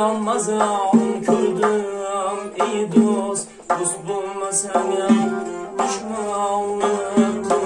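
Live Uzbek folk ensemble: a doira frame drum beating a steady rhythm, a tar plucked, and a Weltmeister piano accordion holding sustained chords, with a man's voice singing.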